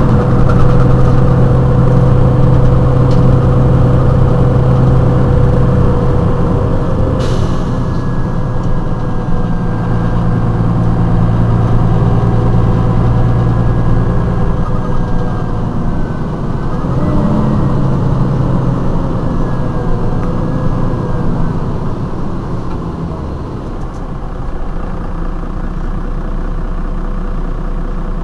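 Mercedes-Benz Citaro city bus engine idling steadily while the bus stands at a stop, its low hum fading and swelling a little, with a brief hiss about seven seconds in.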